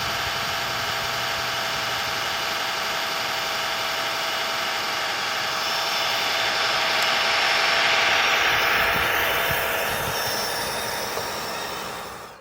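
Radio-controlled Tamiya Kenworth 6x6 truck running, its Servonaut sound module playing a truck engine sound over the model's drivetrain noise. The sound swells about two-thirds of the way through, then fades out at the end.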